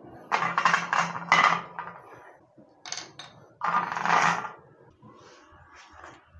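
Small parts, wires and a roll of solder being handled on a wooden workbench: scraping and clinking in a few short spells, the longest in the first two seconds.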